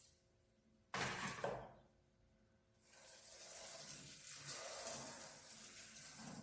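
Fingertips rubbing over a sandpaper letter as it is traced, a dry scratchy hiss. A short stroke comes about a second in, and a longer, steadier stroke starts about three seconds in.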